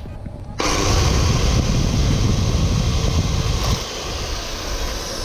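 Corded electric drill running while its bit bores a hole through a Tech Deck fingerboard. The motor starts about half a second in and runs steadily, its deeper part thinning out about four seconds in.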